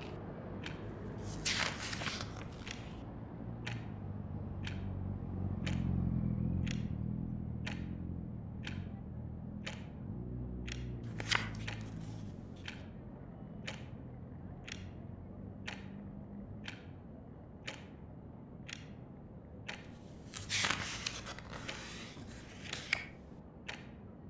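A clock ticking steadily, about three ticks every two seconds, over a low rumble of traffic that swells about six seconds in and again around ten seconds. A couple of brief rustles come near the start and about twenty seconds in.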